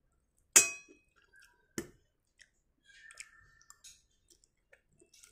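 Eating spaghetti with a metal fork: a sharp click with a short ring about half a second in, a second click near two seconds, then faint scattered ticks and mouth sounds of chewing.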